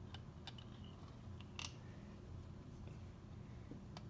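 A few faint, light clicks and taps of small engine parts being handled, one somewhat louder about one and a half seconds in, over a steady low hum.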